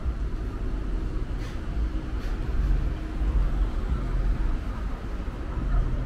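Busy city street ambience: steady traffic rumble.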